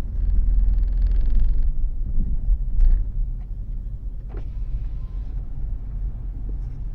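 Motorcycle running at low speed with a steady low rumble. A fine, rapid rattle runs through the first second and a half or so, and there are a couple of brief clicks later on.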